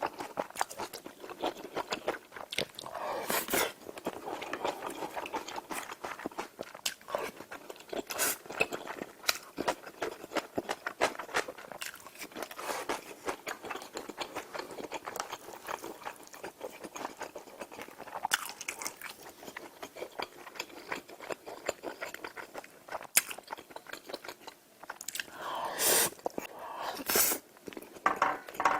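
Close-miked chewing, crunching and wet mouth sounds of a person eating a meal of kimchi stew and rice dishes, irregular and continuous, with two louder bursts near the end.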